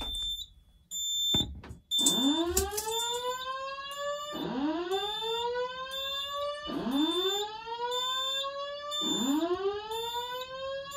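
Simplex 4100ES voice evacuation fire alarm sounding its alert tone through the wall speaker between spoken evacuation messages. The tone is a rising whoop, starting about two seconds in and repeating four times, each sweep lasting about two and a half seconds.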